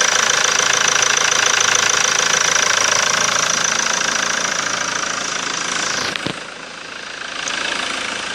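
2018 JMC Vigus 2.4-litre turbo-diesel engine idling steadily with an even diesel clatter, on a test run where it runs well. About six seconds in there is a single knock, and the engine sound is quieter after it.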